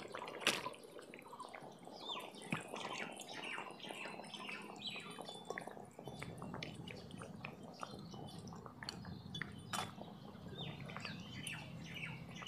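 Fish curry gravy bubbling at the boil in an aluminium kadai: many soft pops and little bubbling chirps, with a few light knocks from the clay lid or spatula against the pan.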